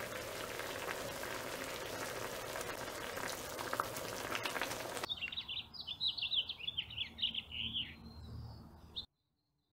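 Spicy bulgogi and octopus hot pot simmering in a pan, bubbling and crackling. About five seconds in this cuts off sharply and a small bird chirps in a rapid series of short notes for a few seconds.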